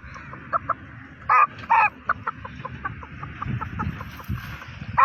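A little boy imitating a chicken with his voice: a run of short clucks, a few a second, with two louder, longer calls about a second and a half in.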